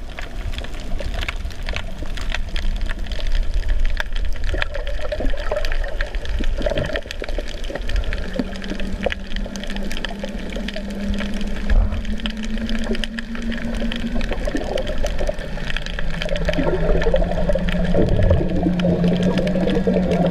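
Underwater sound picked up by a camera below the surface on a coral reef: a steady wash of water noise with scattered crackling clicks. About eight seconds in, a low steady hum joins it, fades briefly, then returns louder near the end.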